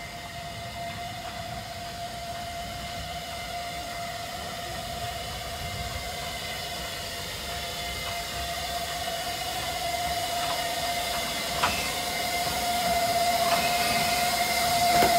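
Colliery steam tank locomotive No. 29, an 0-6-2T, drifting slowly into a station at the head of its coaches. It hisses with a steady high tone over it and grows louder as it draws near. A sharp clank comes about three-quarters of the way in.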